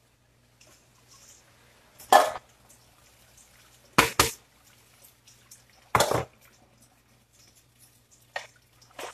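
Dishes and utensils being handled while washing up at a kitchen sink: separate clattering knocks, one about two seconds in, a quick double knock about four seconds in, another around six seconds and one near the end. A faint steady hum runs underneath.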